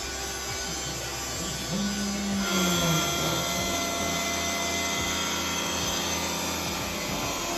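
CNC router spindle with an end mill milling the edge of a cast iron part: a steady whine over a rough cutting noise, shifting in character about two and a half seconds in.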